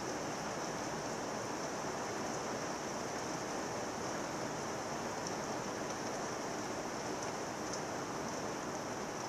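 Heavy thunderstorm rain falling steadily: an even, unbroken hiss of downpour with no distinct drops or thunderclaps standing out.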